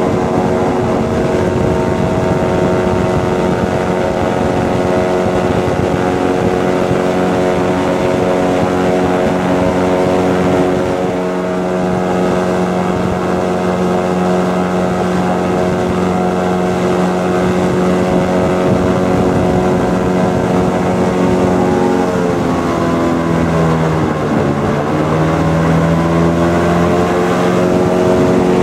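Airboat's engine and big air propeller running loud and steady at speed. About three-quarters of the way through, the engine note drops in pitch and then climbs back up.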